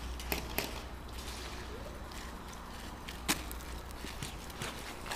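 Boots walking on gravel: irregular footsteps with a few sharper clicks or knocks, the loudest about three seconds in.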